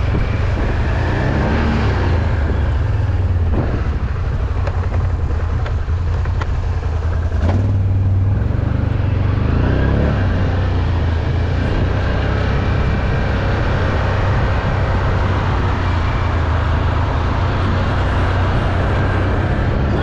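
Can-Am off-road vehicle's engine running steadily under way, with a continuous low drone that rises slightly about seven and a half seconds in.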